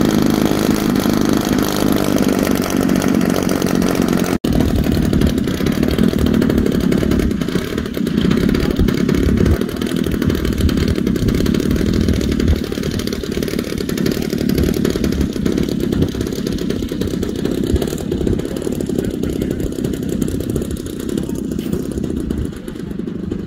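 Engine of a 1/3-scale RC plane running with its propeller spinning, carrying on through the plane's takeoff run along the strip. There is a very brief break about four seconds in, and the sound gets somewhat quieter near the end as the plane moves away.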